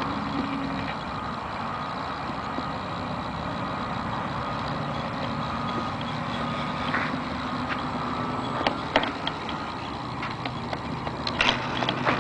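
Faint steady whine of an RC foam P-38 Lightning's electric brushless motors at low throttle as it glides in to land, under a steady rush of wind on the microphone, with a few sharp clicks near the end.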